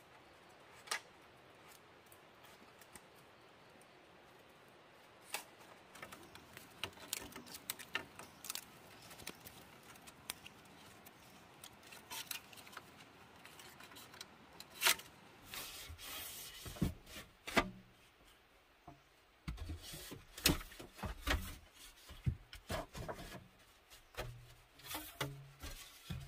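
Bamboo poles being lashed together by hand with cord: scattered light clicks, rubbing and scraping of cord on bamboo, with knocks and low thumps of the poles becoming more frequent from about halfway through.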